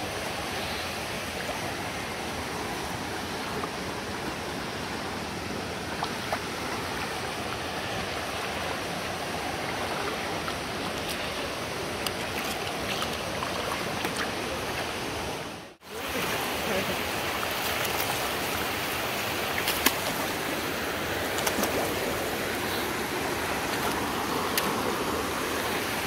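River water running steadily at a wading crossing. The sound drops out abruptly for a moment about sixteen seconds in, then returns, with a few faint clicks later on.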